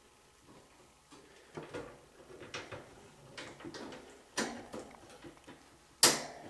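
Chinchilla moving about in its wire cage: irregular small taps, scratches and knocks, with one sharp knock near the end.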